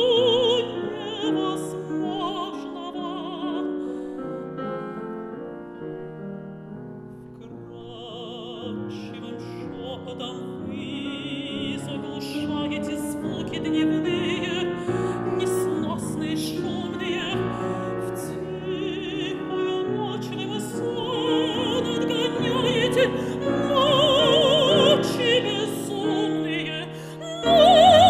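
A mezzo-soprano sings a Russian art song with a wide vibrato, accompanied by a piano. The music drops softer a few seconds in, then builds to a loud, sustained high note near the end.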